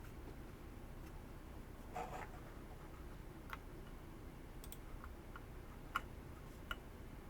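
Scattered single keystrokes on a TKD Cycle 8 mechanical keyboard with HMX Lunar Stone linear switches: about seven short, sharp clicks at irregular intervals, the loudest about six seconds in.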